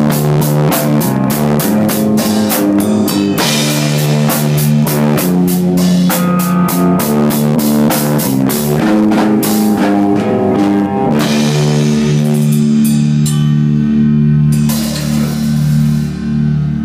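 A rock band of electric guitar, bass guitar and drum kit playing loudly. About eleven seconds in the drumming stops and the guitar and bass hold a long, ringing chord.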